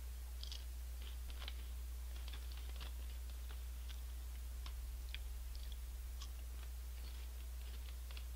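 Honey Tongtong chips being crunched and chewed: irregular small crackles all through, over a steady low electrical hum.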